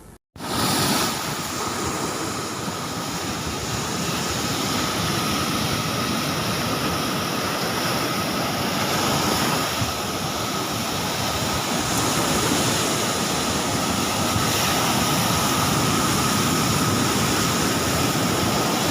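A steady rushing noise with a thin, steady high tone running through it. It starts abruptly after a brief dropout.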